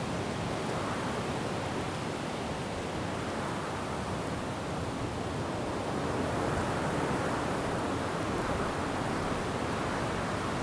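Wind blowing through forest trees: a steady rushing noise that swells slightly about six seconds in.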